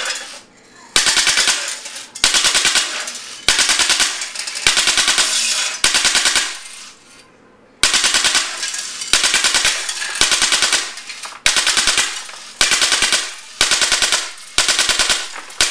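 Drozd Blackbird .177 electronic BB machine gun, run on high-pressure air, firing six-shot bursts at its highest rate of fire: about a dozen rapid rattles, each under a second long, with short pauses between them and one longer pause midway. The steel BBs strike tin-can targets. The gun is very loud.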